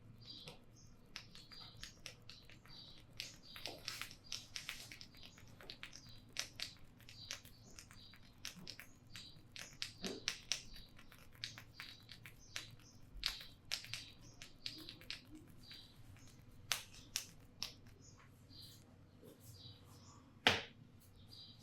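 Hands working over a person's head in a head massage: an irregular run of quick, sharp clicks and taps from fingers on the scalp and hair, with one much louder click near the end.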